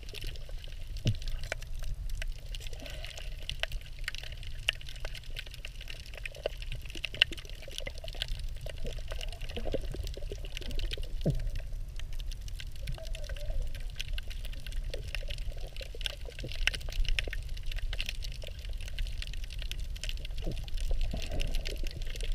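Underwater water noise: a steady muffled rumble and hiss with many scattered small clicks and crackles, and now and then a brief gurgle that slides down in pitch.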